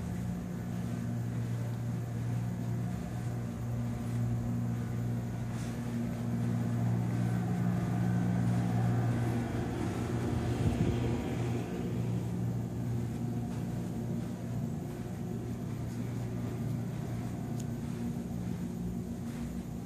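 A steady low mechanical hum of several even tones, growing a little louder through the middle.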